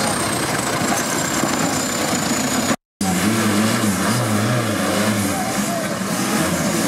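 Off-road trial buggy's engine working under load as it crawls over rock, with a thin high whine that slowly falls in pitch in the first part. After a brief dropout just before three seconds in, the engine revs rise and fall in quick pulses.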